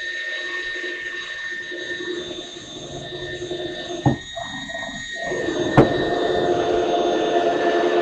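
Cordless drill boring a 1/2-inch hole through a wooden board, its motor whining steadily. A sharp click comes about four seconds in and another near six seconds, after which the drill runs louder.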